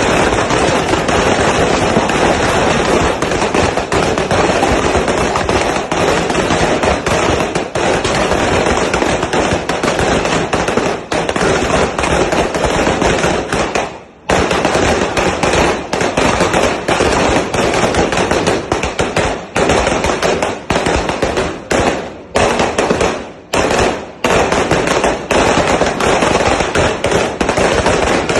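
A 3,000-round Phoenix Thunder 'sawa' firecracker string going off in a rapid, unbroken crackle of bangs. The bangs stop for a moment about halfway, then break up with a few short gaps later on.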